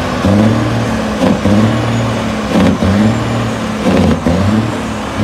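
Big-rig semi-truck engine revved loudly in about five repeated bursts of roughly a second each.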